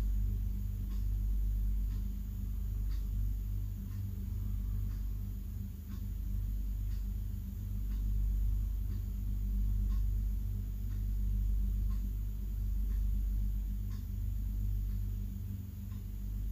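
Steady low hum of room background, with faint ticks about once a second.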